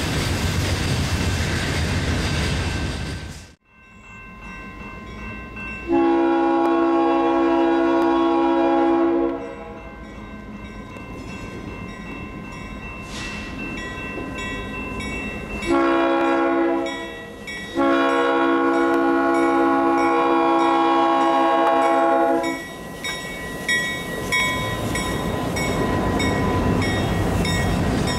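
Freight cars running past on the rails until a sudden cut a few seconds in. Then an Iowa Interstate diesel locomotive's multi-chime air horn sounds one long blast, later a short and a long one, as it approaches the crossing. Its engine grows louder as it passes close near the end.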